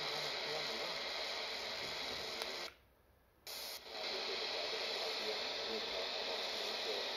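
Portable Retekess TR102 radio on medium wave giving a steady hiss of static between stations. About three seconds in it cuts out for under a second as the receiver steps up one channel and goes briefly silent while retuning, then the hiss returns.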